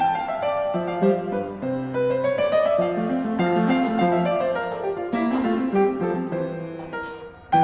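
Background piano music with a melody of shifting notes; it dips just before the end and comes straight back in.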